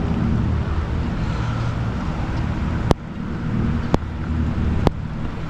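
A steady low motor hum, with three sharp clicks about a second apart past the middle.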